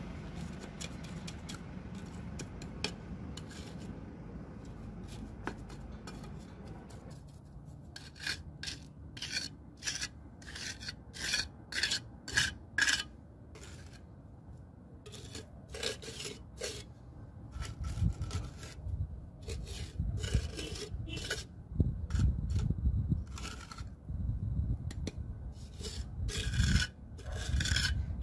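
A steel trowel scraping and spreading wet concrete around a PVC pipe in a concrete floor. It makes short, rasping strokes in quick runs, fainter at first and becoming louder and more frequent about seven seconds in.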